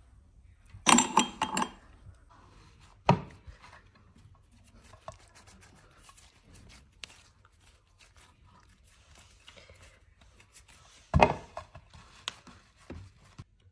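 Hands handling kinetic sand against a ceramic plate and a small press machine. A short scraping rattle comes about a second in, then a sharp knock, then faint scattered ticks. Near the end there is another sharp knock followed by a few clicks.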